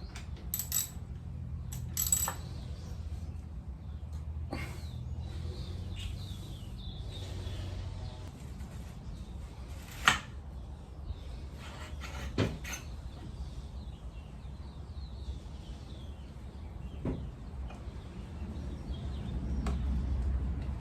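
Scattered metallic clinks and knocks of hand tools and parts as a motorcycle's front wheel is being taken off, the loudest a single sharp knock about ten seconds in, over a low background hum.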